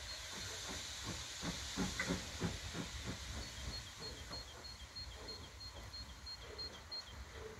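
DB class 23 steam locomotive 23 058 getting under way slowly, steam hissing steadily from its cylinders, with a short run of exhaust beats about a second and a half in.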